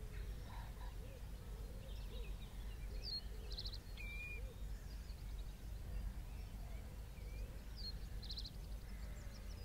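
Estuary marsh ambience: a steady low rumble under a small bird singing a short high phrase that ends in a quick trill, twice, about four to five seconds apart. Fainter, lower calls come and go in the first half.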